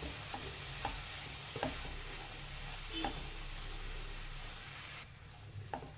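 Drumstick-leaf, egg and green-gram stir-fry sizzling in a steel frying pan while a spatula stirs and scrapes through it, with a few light knocks of the spatula against the pan. The sizzle drops off abruptly about five seconds in.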